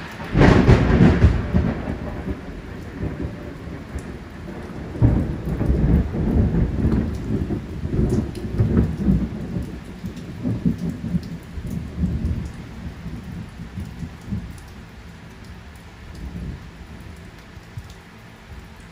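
Irregular low rumbling and rubbing noise as a gloved hand rubs shellac along a guitar neck's binding, uneven strokes coming every half second to a second and thinning out near the end.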